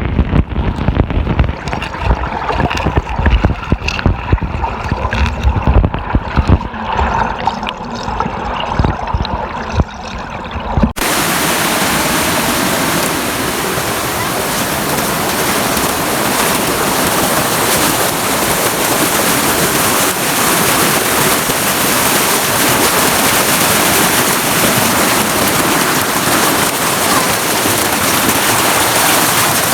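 Muffled, choppy water with low thumps for about eleven seconds, then a sudden cut to the steady, even rush of a waterfall.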